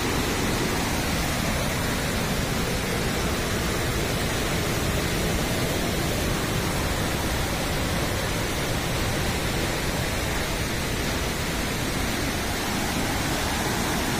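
Turbulent brown river water rushing and churning out through the sluice gates of a movable weir: a loud, steady rush of white water.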